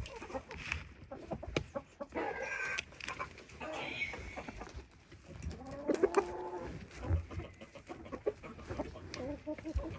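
Backyard chickens clucking and calling, several separate calls, with scattered light taps and rustles among them.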